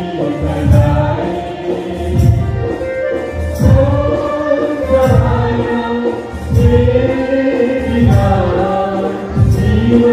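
Parish choir singing a hymn, with a steady low beat about every second and a half.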